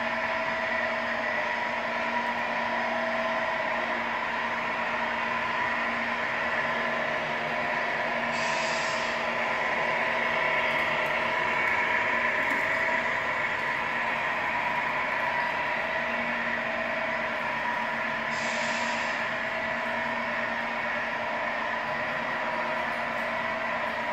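RC truck sound module playing a simulated diesel engine through a small speaker, a steady running note, with a short air-brake hiss twice, about a third of the way in and again near three-quarters.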